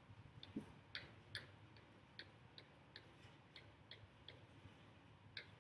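Near silence with faint, light clicks, about two or three a second, one as each tally mark is drawn with the on-screen pen.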